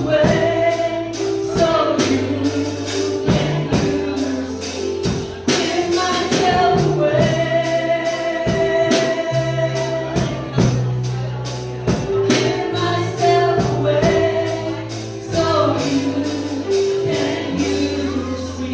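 Gospel music: voices singing over held bass notes and a steady percussion beat.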